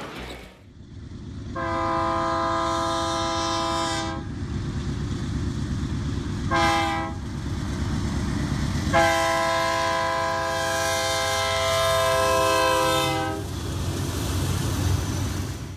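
BNSF freight train's diesel locomotive horn sounding a long blast, a short one and another long one, a multi-tone chord over the steady rumble of the locomotives and rolling freight cars. The pattern is the grade-crossing warning as the train approaches the crossing.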